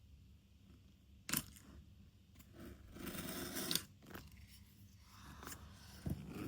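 Cardboard packaging being opened by hand: a sharp tap about a second in, a short tearing scrape around three seconds in, and a knock near the end.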